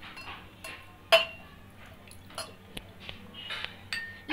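A steel spoon clinking against glass tumblers and steel bowls while lemon juice is spooned into a glass: a few scattered light clinks, the sharpest about a second in.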